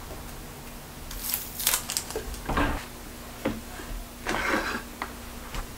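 Small objects and a glass vase being handled and set down on a bathroom countertop: several short knocks and clicks with brief scraping and rustling between them.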